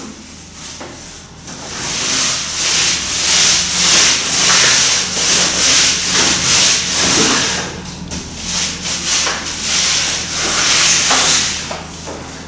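Paintbrushes dragged back and forth over a plastered wall as paint is brushed on: a run of quick, scratchy, hissing strokes, with brief pauses about a second in and again about three-quarters of the way through.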